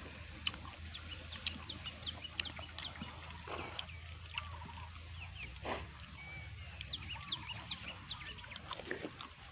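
Birds chirping in many short, high-pitched chirps, over a steady low hum.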